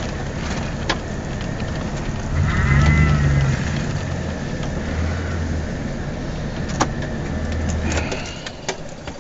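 Pickup truck engine revving up in several short surges while the truck is being turned around, with a wavering whine during the first surge and scattered ticks over a steady hiss. The engine sound eases off near the end.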